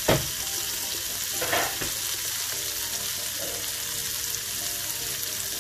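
Sliced onions frying in olive oil and butter in a pan with the flame turned up to caramelize them: a steady sizzle. There is a sharp knock right at the start and a softer one about a second and a half in.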